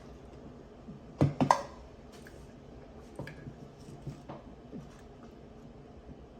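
Eating sounds in a small room: a pair of sharp, wet clicks about a second in, then a few faint scattered ticks.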